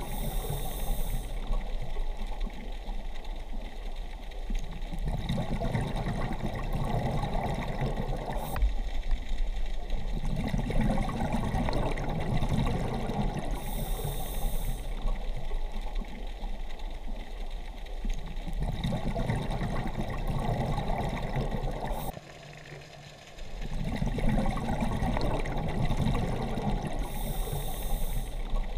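Scuba diver breathing through a regulator underwater: exhaled bubbles rumble out in surges about every five seconds over a steady watery hiss, with occasional short hisses of inhalation.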